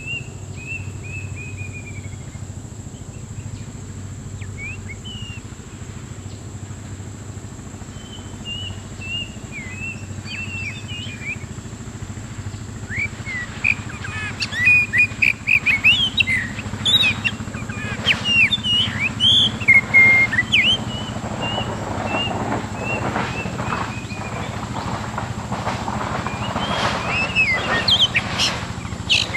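Oriental magpie-robin singing: at first a run of short falling whistles, then from about halfway a louder, fast, varied song of whistled phrases mixed with sharp, harsh notes.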